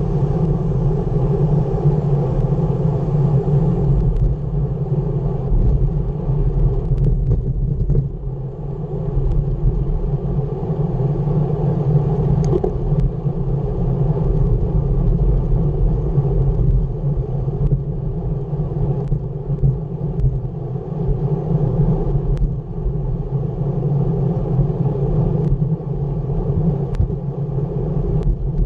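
Steady rush of wind buffeting a bicycle-mounted camera's microphone at about 23 mph, over the rumble of road-bike tyres on asphalt, with a few faint clicks from the bike scattered through it.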